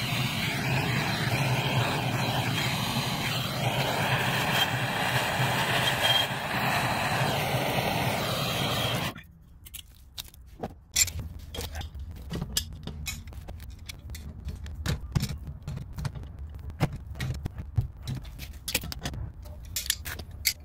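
A steady, loud rushing noise runs for about nine seconds and stops abruptly. Then come scattered light clicks and knocks of hands and tools working at the pipe as the brass hose bib is fitted onto the stub.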